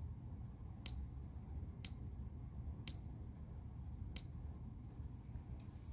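Pro key on a TeeJet 845 sprayer rate controller console pressed four times, about once a second, each press a short sharp click, against a low room hum.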